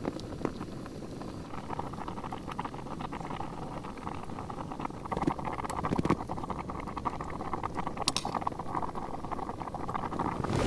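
Linguine boiling in a Jetboil pot over its gas burner: a steady bubbling over the burner's hiss, with a few light knocks as the pasta is stirred with a utensil.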